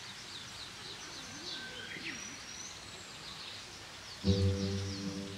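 Outdoor garden ambience with small birds chirping and singing, many short high calls. About four seconds in, background music comes in with a loud, sustained low chord.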